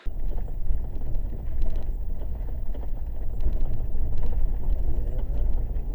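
Truck driving, a loud steady low rumble of engine and road noise with a few faint ticks.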